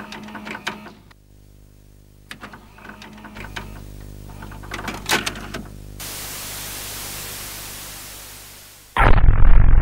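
VCR mechanism sound effects: sharp clicks and clunks of a VHS cassette being stopped and loaded over a low steady hum, then an even hiss of tape static from about six seconds in that fades away. Loud electronic music cuts in near the end.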